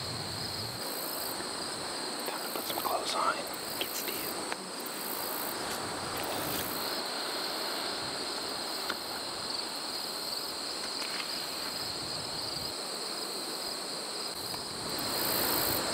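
A steady, high-pitched chorus of insects, an unbroken trill that holds at one pitch.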